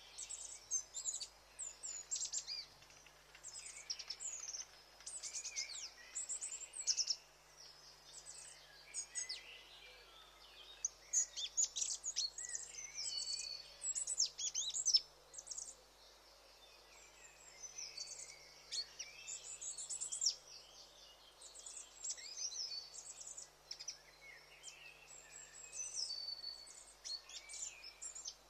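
Many small birds chirping and twittering together, a busy overlapping chorus of short high notes and quick falling sweeps, over a faint steady outdoor hiss.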